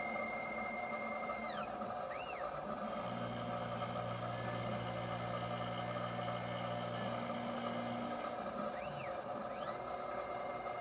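Dyna Myte 2800 CNC milling machine on its first cuts, an end mill running an adaptive roughing pass in a metal block: steady spindle and cutting noise, with the axis motors whining up in pitch, holding and dropping again as the table moves. A steady low hum sits under it in the middle of the pass.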